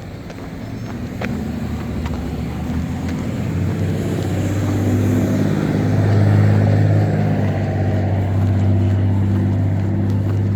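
Motor vehicle engine running close by: a steady low hum that grows louder over the first six seconds or so, then holds.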